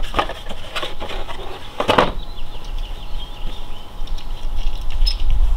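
Clicks and knocks of a faucet and its plastic case being handled and taken apart, several in the first two seconds with the loudest about two seconds in. A low rumble comes up near the end.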